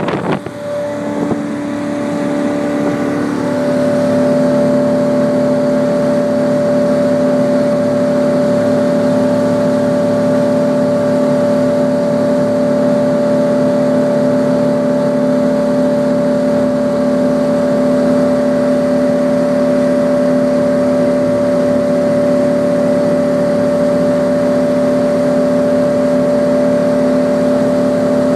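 Crownline CR 250 cruiser's engine running under way, heard from inside the cabin behind the windshield. It builds over the first few seconds, then holds a steady drone.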